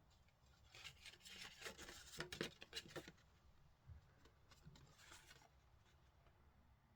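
Faint rustling and light clicks of paper and cardboard being handled while a watch box is searched, busiest in the first three seconds, with a few soft taps later and otherwise near silence.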